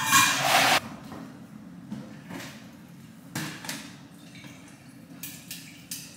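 Water pouring from a plastic filter pitcher into a water bottle, with a few light knocks as the pitcher and bottle are handled. A short, loud rushing noise fills the first second.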